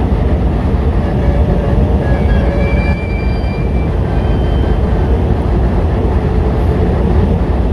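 A heavy work train of loaded rail-carrying flat wagons rolling slowly out of a tunnel, pushed from the rear by a DF4B diesel-electric locomotive: a steady low rumble of wheels on rail and diesel engine. A faint thin squeal rides over it for a couple of seconds about two seconds in.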